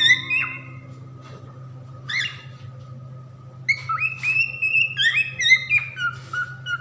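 Cockatiels whistling: a few gliding notes at the start, a short call about two seconds in, then a run of rising and falling whistles through the second half. A steady low hum runs underneath.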